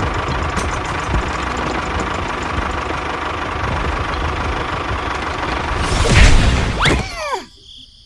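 Diesel tractor engine running steadily, then a loud crash about six seconds in, followed by a few quick, high, falling squeaky glides.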